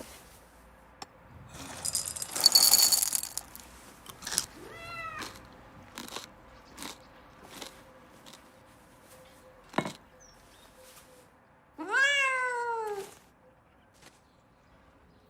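Two animal calls: a short falling one about five seconds in and a longer one that rises and then falls near the end. Between them are scattered soft clicks. The loudest sound is an earlier burst of noise with high ringing tones about two seconds in.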